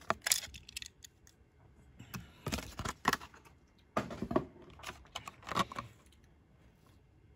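Crinkling and clicking of a Hot Wheels die-cast car's plastic blister pack and cardboard backing as the car is pulled free and the packaging is handled. It comes in short bursts with pauses between.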